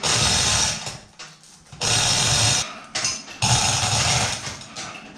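Manual chain hoist being hauled in three spurts of about a second each, raising a flathead V8 engine out of its chassis.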